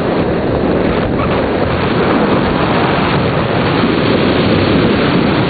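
Wind rushing steadily across a skydiver's camera microphone, a loud, even noise during the descent.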